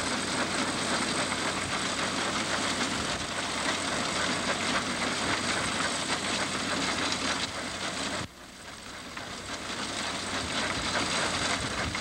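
Tractor-drawn grain binder at work in wheat: a tractor engine running steadily under the dense clatter of the binder's cutting and tying mechanism. About eight seconds in the sound drops away abruptly, then builds back up.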